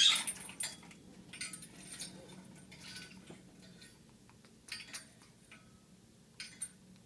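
An African grey parrot moving about its play stand, setting off a run of short clinks and rattles from the stand and its hanging toys. The loudest comes right at the start, and there are five or six more spread through.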